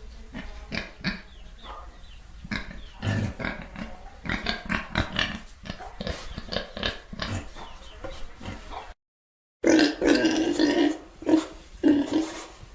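Pigs grunting and oinking in a quick run of short calls. About nine seconds in there is a brief cut to dead silence, followed by louder oinks with a clearer pitch.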